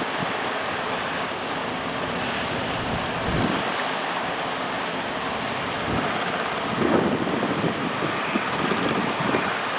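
Surf breaking at a river mouth with strong wind buffeting the microphone: a steady rush of noise with gusts thumping against the mic about three and a half seconds in and again around seven seconds.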